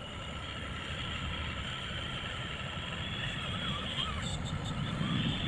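Radio-controlled model dump truck running, a steady low rumble with a high, even whine over it.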